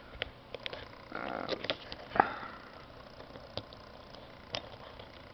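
Small clicks and scrapes of a component's wire leg being pushed into a plastic solderless breadboard, with one sharper click a little over two seconds in.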